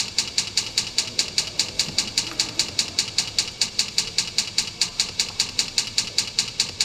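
Rapid, even mechanical ticking, about six ticks a second, high and sharp, stopping abruptly near the end.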